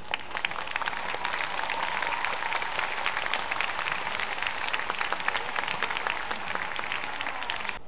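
Crowd applauding: a dense patter of many hands clapping with sharp individual claps through it. It starts suddenly and cuts off abruptly near the end.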